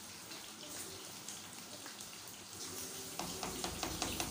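A pan of rice boiling in spiced water, a steady bubbling and crackling as the water cooks off. About three seconds in, a slotted spoon scrapes and stirs through the rice a few times.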